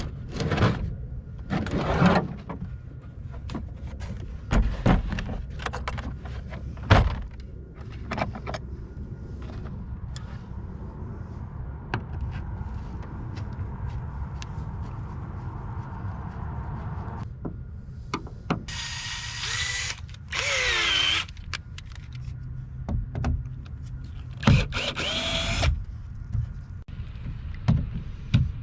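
Power drill backing screws out of a boat seat mount, running in short bursts of a whining motor, one of them winding down in pitch as it stops, with knocks and clicks between the bursts.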